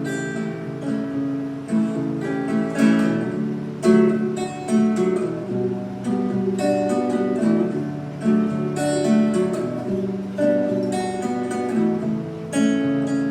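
Acoustic guitar played between verses of a song, chords strummed and picked in a steady rhythm.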